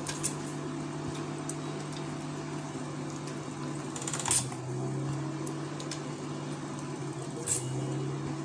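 Metal spoon stirring gram-flour batter in a steel bowl, with a few short scrapes against the bowl, the loudest about four seconds in and another near the end. A steady low mechanical hum runs underneath.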